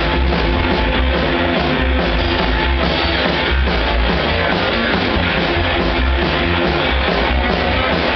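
A live rock band playing loudly without a break: upright double bass, electric guitar and drum kit.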